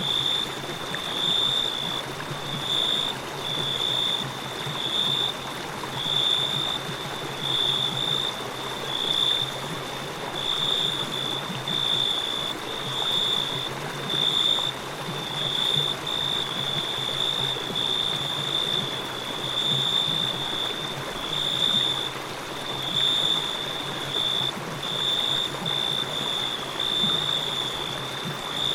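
A river flowing steadily, with crickets chirping over it: a high, even, repeated chirp a little more than once a second.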